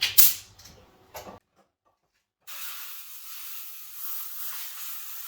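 A few sharp handling clicks and knocks, then, after a short gap, a steady hiss of compressed air blowing through a Dyson vacuum's air filter to clear out dust.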